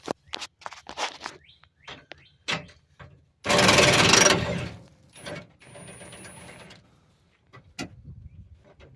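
Socket tools working loose the fuel-tank strap bolts under a pickup: scattered metal clicks and clanks, a loud mechanical burst of about a second roughly three and a half seconds in, and a quieter run of the same kind of whirring mechanism shortly after.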